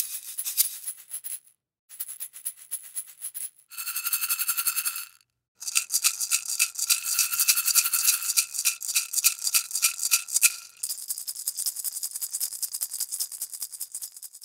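Rapid rattling and jingling with a metallic ring, in four or five separate shakes broken by short pauses.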